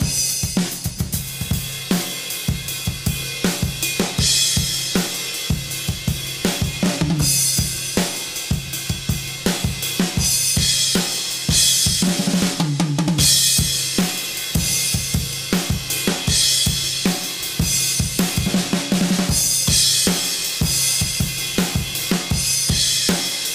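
Acoustic drum kit played solo: a Tama Starclassic Performer birch kit with a Mapex birch snare and Zildjian and Sabian cymbals, a steady groove of kick, snare and hi-hat with crash cymbals every few seconds and a few tom hits. Picked up by a single large-diaphragm condenser mic about a foot in front of the kit, with light EQ, reverb and compression.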